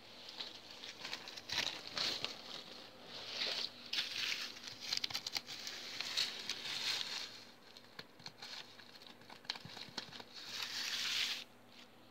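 A hand rubbing over a handwoven rug of plastic-bag strips, the plastic rustling and crinkling in irregular bursts with small clicks. The rustling eases off about eight seconds in, then comes back as one last burst that cuts off sharply near the end.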